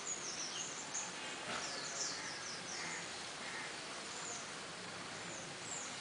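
Small birds chirping: many short, high, falling chirps, thickest in the first three seconds and scattered after, over a steady outdoor background hiss.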